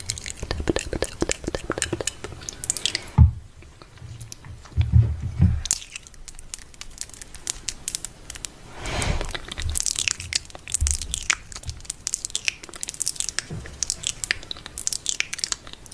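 Rapid, close-up clicks and crackles, with a few dull thumps about three and five seconds in.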